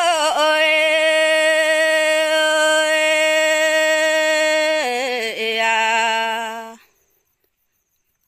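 A woman singing a Red Dao folk song unaccompanied. She holds one long steady note for about four and a half seconds, dips down in pitch to a lower held note, and stops about seven seconds in.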